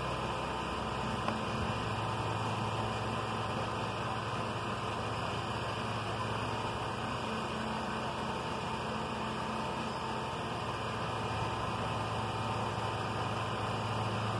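A steady engine hum at an even pitch with no change in speed.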